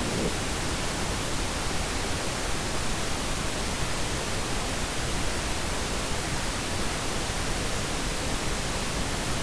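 Steady synthetic noise, an even hiss spread evenly from low to high pitches without change, of the kind played to mask tinnitus.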